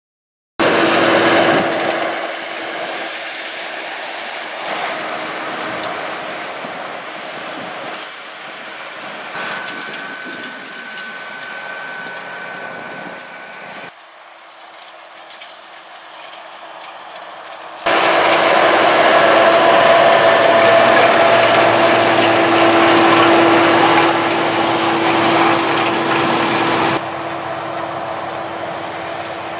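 John Deere tractor running steadily with a constant hum as it pulls a Swifter pre-seeding compactor across tilled soil. The level jumps up and down between shots: quietest a little past the middle, loudest in the last third.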